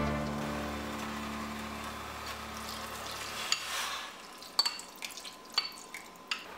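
Background music fading out, then food sizzling faintly in an aluminium pot on a hot stovetop, with a few sharp clicks and pops in the second half.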